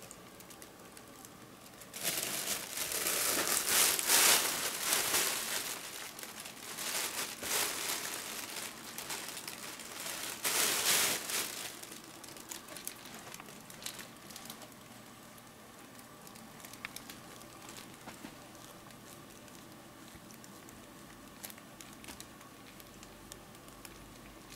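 Kitten scrabbling against a nylon cat play tunnel, the fabric rustling and crinkling in loud bursts for about ten seconds, then only a few faint taps.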